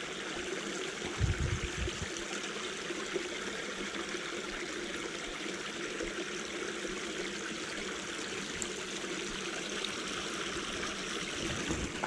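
Small creek flowing and trickling steadily, with a brief low thump about a second in.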